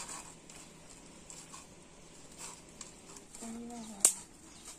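Hands mixing chicken pieces into pakora batter in a steel bowl: faint scattered squishes and light clicks. A short hummed voice sounds about three and a half seconds in, followed at once by a sharp knock, the loudest sound.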